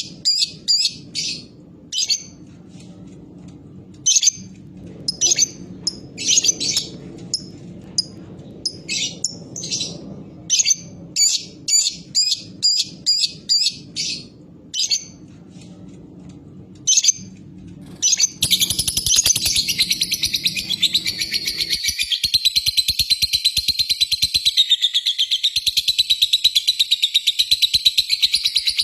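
Lovebird calling in short, sharp chirps, singly and in quick runs (the 'ngetik' call). About 18 seconds in it breaks into one long, unbroken rapid chatter (a long 'ngekek') that carries on to the end.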